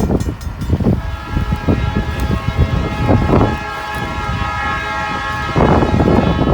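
Diesel freight locomotive's multi-chime air horn sounding one long chord at a grade crossing, starting about a second in and stopping about a second before the end. Under it is the low rumble of the train, with wind gusting on the microphone.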